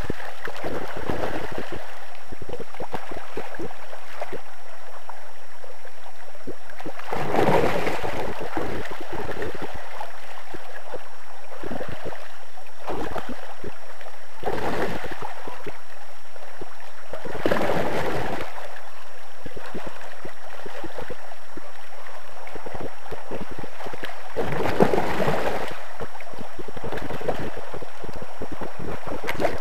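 Shallow river water running over gravel, a steady hiss with four louder rushes lasting a second or two each.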